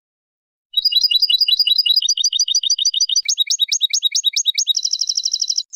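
European goldfinch song: after a second of silence, quick runs of repeated high chirps that change from one note type to the next, then a fast buzzy trill that breaks off near the end, followed by a short falling note.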